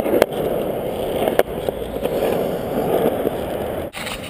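Skateboard wheels rolling over concrete, a steady rumble broken by a few sharp clicks.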